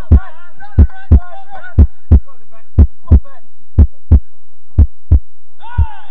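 Heartbeat sound effect: pairs of deep thumps, lub-dub, about once a second, the last one near the end weaker.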